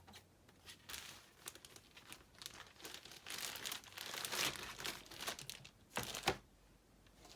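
Crinkling and tearing of packaging as the next CGC-graded comic slab is unwrapped, in irregular crackles that build in the middle and end with a few sharp crackles.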